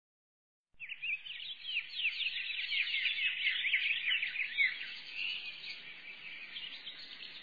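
A dense chorus of many small birds chirping and twittering together, quick high chirps overlapping without pause. It starts suddenly, under a second in.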